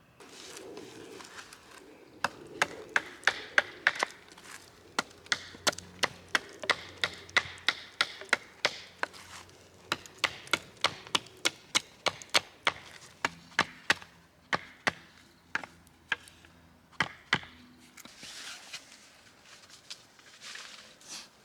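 Tent pegs being hammered into the ground: a fast run of sharp strikes, about two or three a second, with a brief pause partway through, stopping a few seconds before the end.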